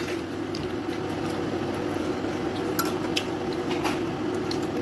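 Occasional light clinks and taps of a metal spoon and fork against a small glass bowl and clear plastic food containers while eating, over a steady low hum.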